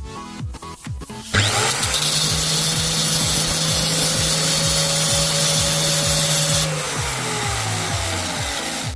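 A small electric power tool switches on suddenly and runs steadily with a loud hiss and hum for about five seconds. The hiss then stops and the motor's pitch slowly falls as it winds down. Electronic dance music with a steady beat plays under it throughout.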